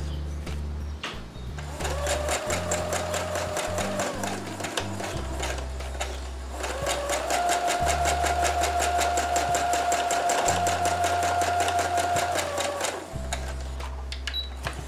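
Brother SQ9185 computerized sewing machine stitching a short straight stitch through a spring-action quilting foot, in two spells: a short run about two seconds in, then a longer one of about six seconds. Each run is a rapid, even clatter of needle strokes over a steady motor whine.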